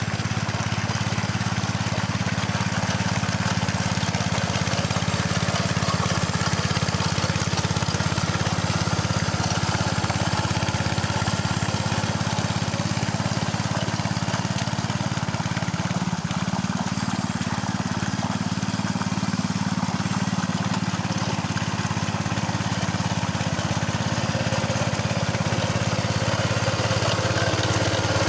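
Engine of an old Capung Metal mini two-wheel paddy tractor running steadily while ploughing a wet rice field, its pitch lifting slightly about two-thirds of the way through.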